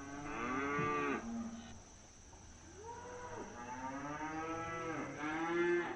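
Cattle mooing: several drawn-out calls in a row, the last one the loudest.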